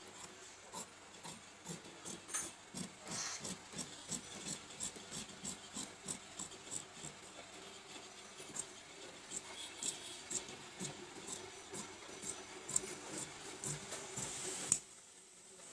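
Large steel tailor's shears cutting through shirt fabric on a table, the blades snipping in a quick, irregular run of clicks, with a short break near the end.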